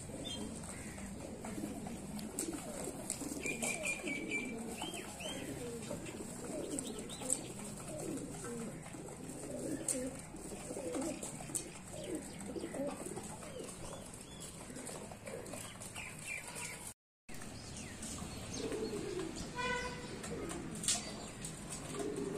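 Domestic pigeons cooing, many low coos overlapping throughout, with a few brief higher chirps. The sound cuts out completely for a moment about three-quarters of the way through.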